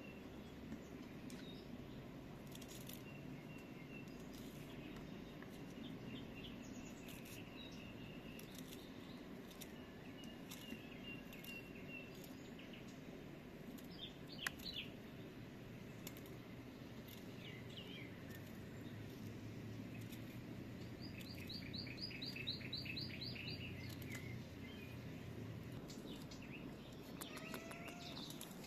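Small birds chirping in short calls, with a quick trill of repeated notes about three-quarters of the way through, over faint steady background noise. Occasional small clicks and snaps come from wild artichoke stalks being trimmed by hand, the sharpest about halfway through.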